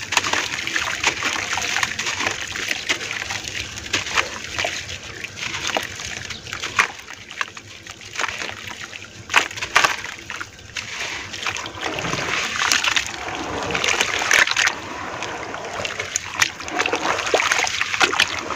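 Hands crumbling gritty chunks of red dirt into a basin of water and squishing the wet mud. There is a continual splashing and sloshing, with many small sharp splats as pieces drop into the water.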